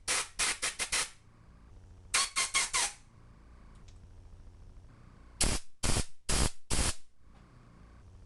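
Quick puffs of compressed air from an air blow gun, in three bunches of four or five short hisses, blowing out the small air-bleed orifices and passages of a Holley carburetor.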